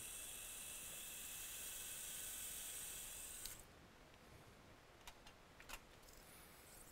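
Surgical power drill running a bit through a percutaneous guide to drill the pilot hole for a knotless 2.6 FiberTak suture anchor: a faint steady high whine and hiss that cuts off abruptly about three and a half seconds in, followed by a few faint clicks.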